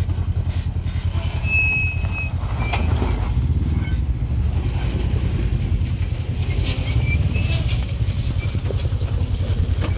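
Off-road vehicle engines running at low revs while crawling over rock, a steady low rumble with a fast, even pulse. A couple of sharp knocks stand out, one about three seconds in and one near the end.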